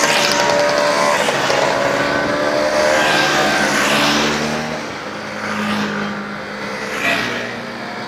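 A string of vintage Vespa and Lambretta scooters riding past one after another, their small two-stroke engines buzzing and swelling as each goes by. It is louder in the first half and eases a little after about five seconds.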